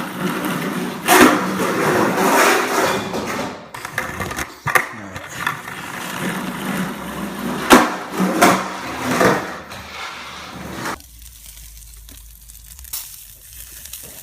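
Skateboard wheels rolling on a hard indoor floor, with several sharp board snaps and landing impacts. The rolling stops suddenly about eleven seconds in, leaving a much quieter steady hiss.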